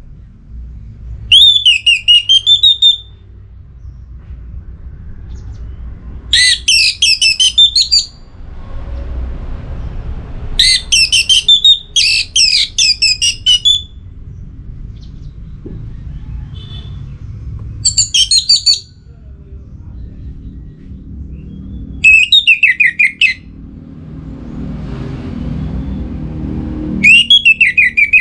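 Orange-headed thrush singing: loud, short whistled phrases with falling notes, about seven of them a few seconds apart, over a steady low rumble.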